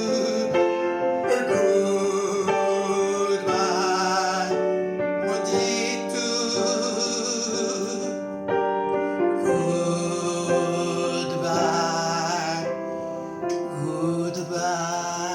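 A song sung over keyboard accompaniment, with long held notes that waver in vibrato.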